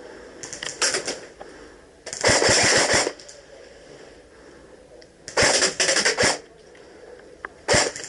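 Electric airsoft guns firing full-auto bursts, about four bursts of up to a second each, the loudest about two and five seconds in.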